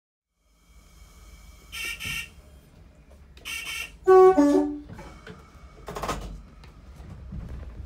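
Horn of a Metro-Cammell diesel multiple unit sounding, over the low rumble of its diesel engines. Short higher-pitched toots come at about two and three and a half seconds. About four seconds in comes a louder two-tone blast that drops from a higher note to a lower one, and a short rushing noise follows about six seconds in.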